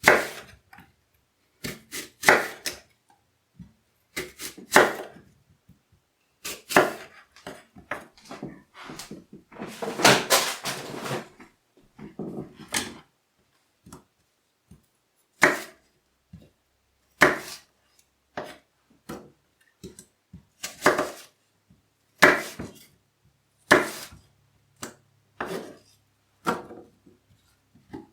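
Kitchen knife dicing an apple, its blade knocking down onto a cutting board one cut at a time, every second or two, with a longer, busier stretch of cutting about ten seconds in.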